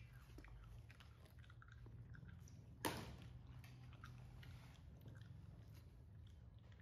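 Baby macaque chewing and biting fresh lotus seeds from a green lotus seed pod: faint small clicks of eating, with one sharper click about three seconds in.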